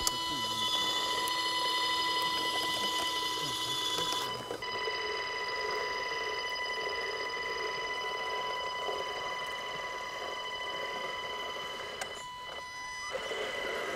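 Electric drive of a scale RC crawler truck whining with a steady high-pitched tone as it creeps slowly up a dirt slope at low throttle. The whine cuts out briefly about twelve seconds in, then comes back.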